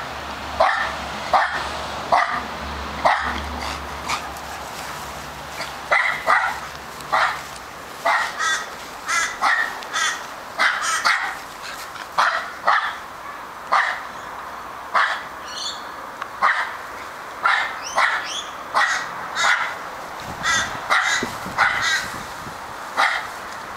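Australian terrier barking over and over, sharp barks about once a second, some in quick pairs.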